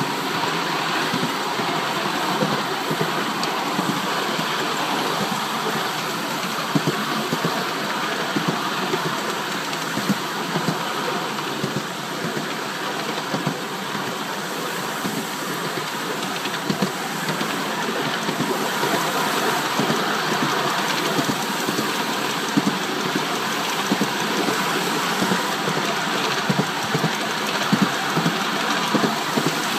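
Five-inch gauge coal-fired miniature steam train (a Polly 6 locomotive with its riding car) running along the track: a steady rush of running noise with frequent irregular clicks and knocks from the wheels on the rails.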